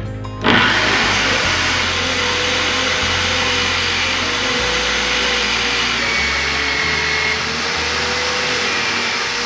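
Motor-driven sanding disc running with a steady grinding rasp as a wooden blank is pressed against it and shaped, starting abruptly about half a second in.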